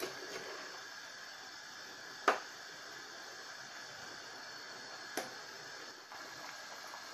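Faint steady hiss of a pot of potato and chicken curry cooking on a high flame, broken by two sharp clicks about three seconds apart, the first the louder.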